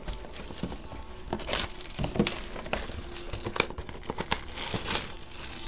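Clear plastic shrink wrap being peeled and torn off a sealed trading card box, crinkling and crackling in a string of irregular small snaps.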